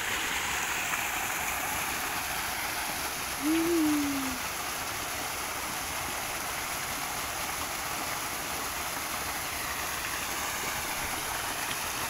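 Water from a rice-field irrigation ditch pouring steadily over a small drop from a concrete channel, a continuous rushing splash. About four seconds in there is a brief low hum-like voice sound.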